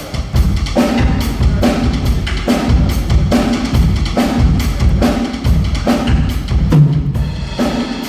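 Acoustic drum kit played in a steady groove: bass drum thumps and snare hits, under regular strikes on the cymbals or hi-hat.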